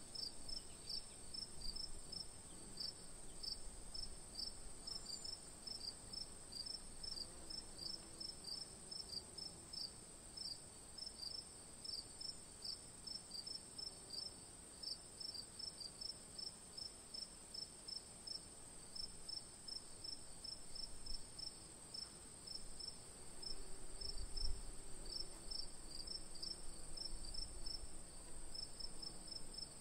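Crickets chirping in a steady rhythm, about three chirps a second.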